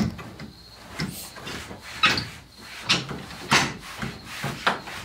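Sharp plastic clicks and knocks, about six in five seconds, from car interior trim pieces and their clips being handled and fitted.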